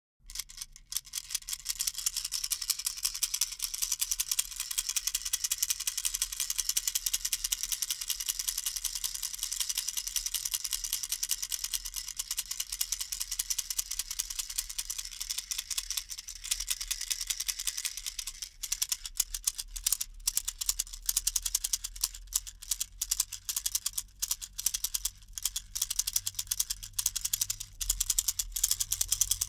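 Baby rattle shaken continuously, giving a dense stream of fast, small clicks and rattles. The sound starts abruptly out of silence. About two-thirds of the way through, the shakes become more separate and sharper.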